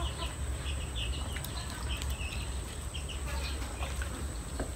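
Small birds chirping in short repeated bursts in the background, with a steady high-pitched tone and a few faint clicks.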